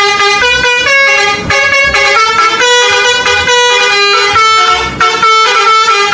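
Telolet bus horn: several air-horn tones sounding together and playing a quick tune, the pitch stepping to a new note every half second or so.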